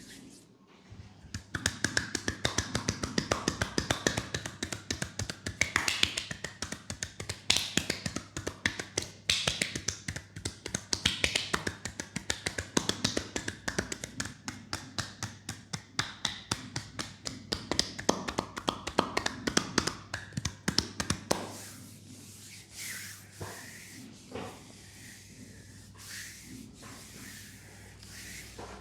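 Hands rapidly tapping and slapping on skin in a percussion massage, many strikes a second. About three quarters of the way through the fast tapping stops, leaving a few slower taps and rubs.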